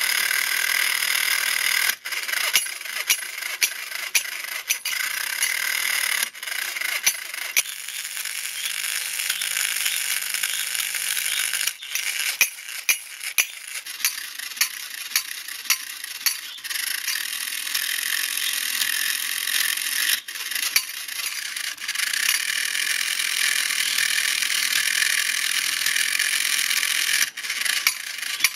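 Battery-operated tin clapping-monkey toy mechanism running: a small electric motor and gear train whirring steadily, with sharp metallic clicks and rattles from the arm linkages at irregular intervals.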